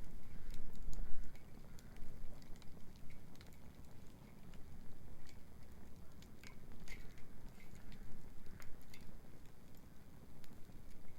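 Wood bonfire crackling, with irregular sharp pops and snaps over a steady low rumble.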